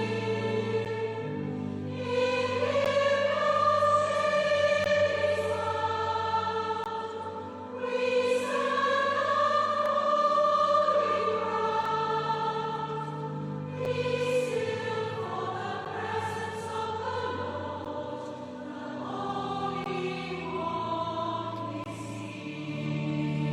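A choir singing a slow piece in long held phrases, the chords moving step by step over sustained low notes.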